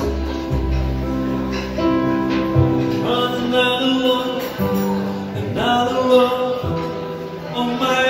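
Live male singing into a microphone with instrumental accompaniment, amplified through a loudspeaker.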